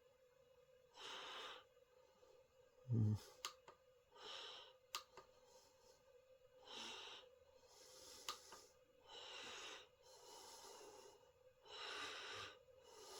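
A person breathing faintly close to the microphone, a breath every couple of seconds, over a steady low hum. A single dull thump about three seconds in and a few sharp clicks break in.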